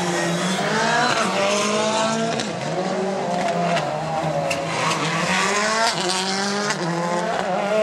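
Rally car engines revving hard and accelerating through the gears, the pitch climbing and dropping back with each shift several times over.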